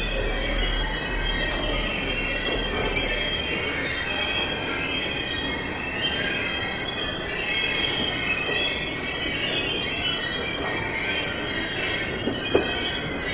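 Metro station escalators squealing loudly and continuously, many high metallic squeaks wavering over one another, the sign of escalators in dire need of repair. A single sharp click sounds near the end.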